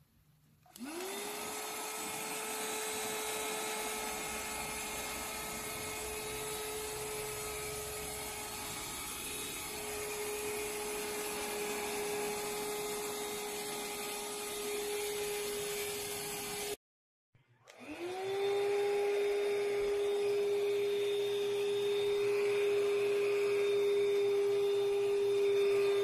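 Handheld cordless UV dust-mite vacuum switched on: its motor winds up within a second to a steady high whine with a rush of air. About two-thirds of the way through the sound cuts out briefly, then the motor starts again and winds up to the same steady whine.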